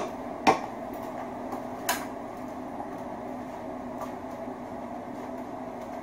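Short pieces of copper wire tossed by hand onto a sorting pile: two sharp clicks about half a second and two seconds in, then fainter ticks around four seconds, over a steady low hum.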